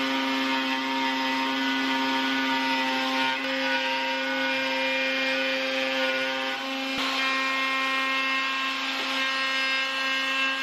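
Plunge router running at steady speed as it cuts a shelf groove (dado) into 3/4-inch plywood, a constant whine with the rasp of the bit in the wood; the tone shifts slightly with a faint click about seven seconds in.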